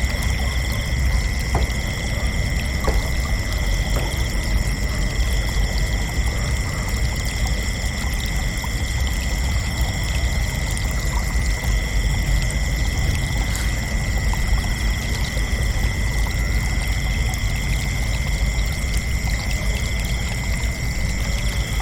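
Chorus of crickets trilling without pause at several pitches, one high trill steady throughout and another fading in and out every few seconds, over a steady low rushing noise.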